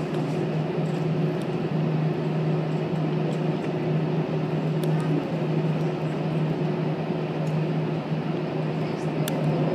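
Airbus A320 cabin noise while taxiing: a steady engine hum with a constant low tone, heard from a window seat over the wing. A couple of faint clicks sound about halfway through and near the end.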